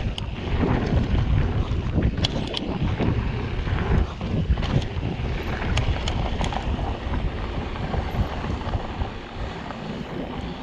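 Mountain bike running fast down a dirt trail: steady wind rush on the microphone over tyre noise, with several sharp clicks and rattles from the bike as it rolls over the rough ground.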